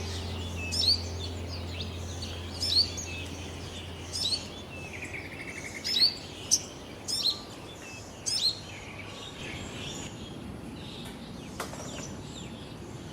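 Birds calling: short, high, sweeping chirps repeated every second or two, with a quick trill about five seconds in. The calls thin out over the last few seconds.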